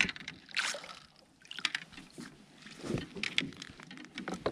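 Irregular splashes and drips of water, with a few light knocks and clatter in between.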